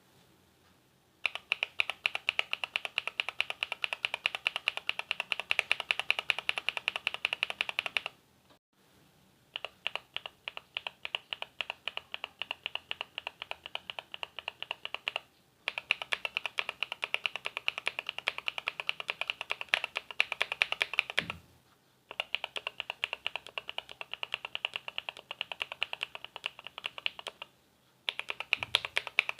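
Fast typing on a mechanical keyboard with stock, factory-lubed linear switches: dense runs of sharp keystroke clacks. They come in four bursts of several seconds each, separated by short pauses, with a fifth starting near the end.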